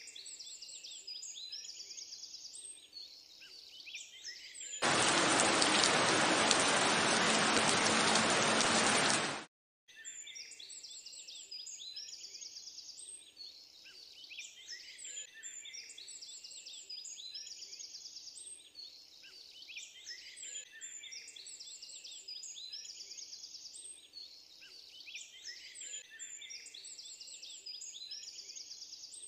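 Birds chirping and trilling on and on in a steady background chorus. About five seconds in, a loud, steady rushing hiss covers them for about four and a half seconds, then cuts off abruptly.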